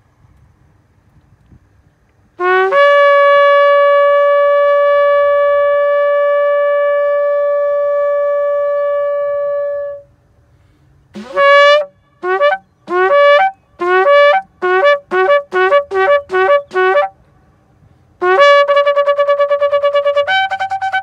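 A long, curled shofar blown in a series of calls. About two seconds in comes one long, steady blast lasting some seven seconds. Then comes a run of about a dozen short blasts that follow one another faster and faster, then another long, wavering blast that jumps to a higher note near the end. It is the horn call blown to bring in the Sabbath.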